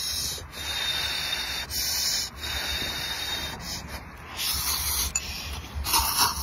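A person slurping instant noodles into the mouth, several long sucking slurps in a row with short breaks between them.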